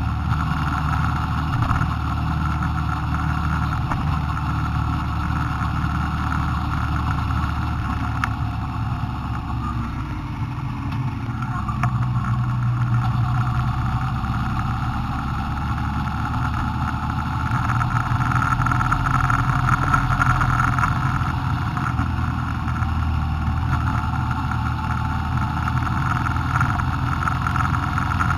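A vehicle driving along a road, heard from on board: a steady engine hum with road and wind noise. It grows louder about twelve seconds in and again near two-thirds of the way through as the vehicle speeds up.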